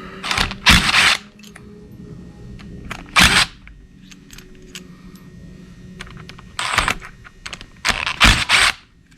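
Hand-tool work on the small T30 Torx bolts of a Ford Coyote intake cam phaser: scattered metallic clicks and ticks, with four louder bursts of rasping, clattering metal noise.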